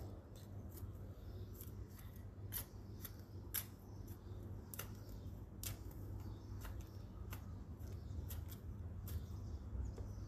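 Small hand garden tool scraping and digging into dry, stony soil in short, sharp strokes at irregular intervals, roughly one a second. A steady low hum runs underneath.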